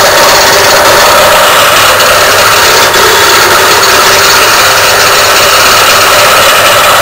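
JET benchtop wood lathe running steadily while a turning tool cuts a spinning wooden handle blank: a loud, continuous whirring and scraping.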